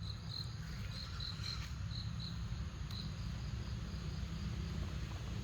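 An insect, cricket-like, chirps in short high pulses several times in the first few seconds, over a steady low rumble.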